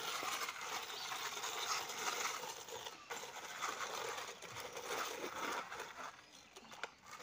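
Plastic toy trucks scraping and rattling as they are pushed over rough, gritty concrete, with many small clicks. It eases off about six seconds in.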